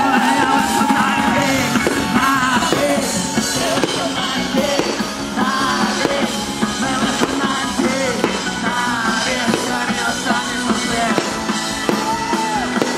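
Loud rock music from a band with guitars and drums, a voice singing the melody over it.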